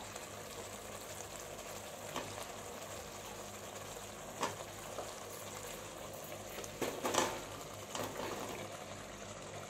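Tomato-onion masala bubbling steadily in a pan, with a few short knocks as cubed raw potatoes are dropped in.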